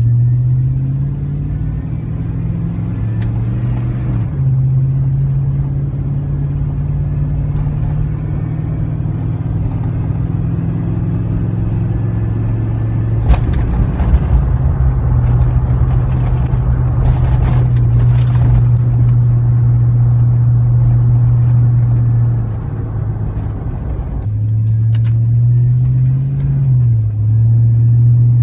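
A 5.3L V8 in a Chevy Silverado running through a Cherry Bomb muffler, a steady low exhaust drone under acceleration. The pitch climbs in the first seconds and drops with a gear shift about four seconds in, then holds for a long stretch. It eases off around three quarters of the way through, climbs again and shifts once more near the end, with a few brief knocks near the middle.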